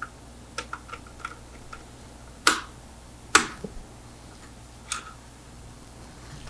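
Small clicks and taps of hands handling wires at a plastic screw-terminal strip, with two sharp clicks about two and a half and three and a half seconds in, and a lighter one near five seconds.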